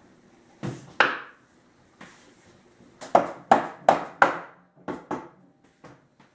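Rubber-headed mallet knocking a wooden table leg into place: two knocks, then a quicker run of about six, the last ones lighter.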